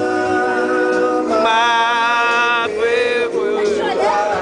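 Music: a man singing long held notes over guitar.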